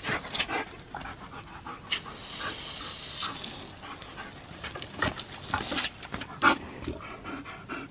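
German Shepherd panting hard in quick, ragged breaths after chasing water, with a garden hose spraying in the first few seconds.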